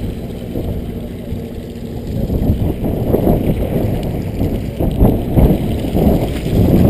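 Wind buffeting the microphone aboard a sportfishing boat at sea, coming in uneven gusts, with a faint steady hum under it for the first couple of seconds.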